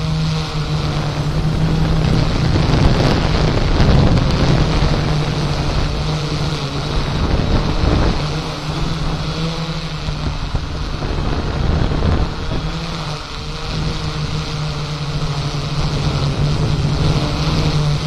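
Strong wind rushing across the microphone, swelling and easing, over the steady low hum of a quadcopter drone's propellers.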